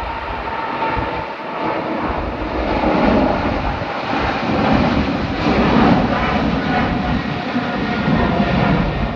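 Jet airliner engines at takeoff thrust: a loud continuous rushing noise that swells twice in the middle as the aircraft passes close by, with a faint steady whine early on.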